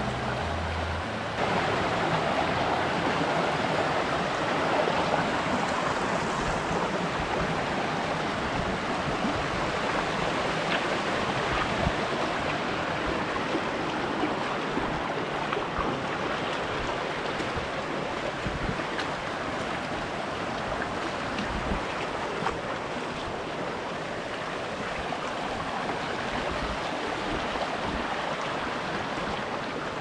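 Shallow mountain creek rushing steadily over stones and gravel.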